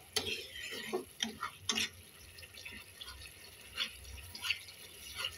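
Thick tomato-onion masala bubbling and spitting in a kadai as a spatula stirs and scrapes it: a faint sizzle with scattered sharp pops. The masala is being fried until the oil separates.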